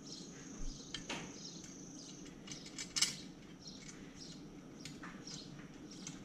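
Faint light metallic clicks and taps of screws and hand tools being worked on a motorcycle carburetor bank, with small birds chirping in the background.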